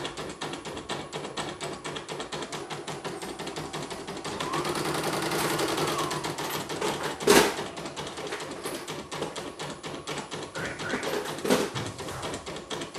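Computerised embroidery machine stitching a test design, its needle striking in a rapid, even rhythm. A whine rises and falls near the middle, and a sharp knock comes a little past seven seconds in, with another near the end.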